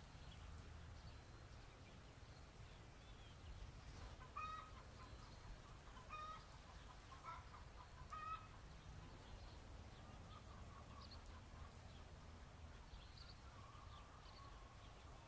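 Chickens clucking faintly: four short calls about two seconds apart in the middle, over a low steady rumble.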